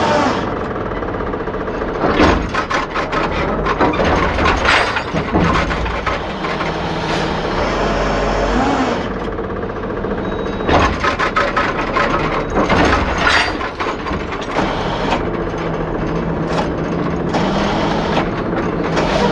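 Heavy truck's diesel engine running steadily, with many sharp metallic clanks and rattles breaking in throughout.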